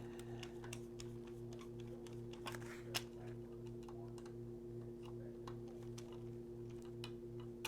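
Scattered small clicks and taps as parts of a model train car are handled and taken off on a workbench, with one sharper click about three seconds in, over a steady low electrical hum.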